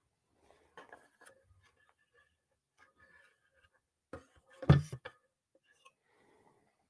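Handling noise close to the microphone: faint rustles and light taps, with one loud knock about four and a half seconds in, as a small rocket glider model is handled and the webcam is bumped.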